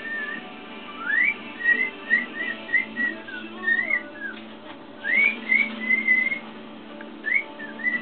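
Cockatiel whistling its song: quick runs of short, bright notes that glide up and down, in several phrases with brief pauses between them.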